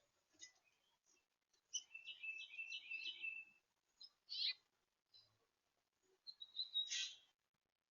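Small songbirds chirping and twittering at a feeder: short high chirps, a quick run of them about two seconds in, and a louder call near the end.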